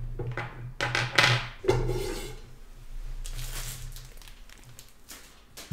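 Handling noise: small plastic earbuds and a cardboard box tapping and clicking on a wooden table, with a short sharp cluster of knocks about a second in, a brief rustle a little after three seconds and a few light clicks near the end, over a steady low hum.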